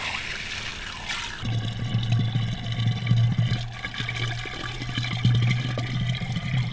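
A stream of water from a hose watering wand pours into an empty terracotta olla buried in the garden bed, filling it. The splashing rush takes on a steady low note about a second and a half in.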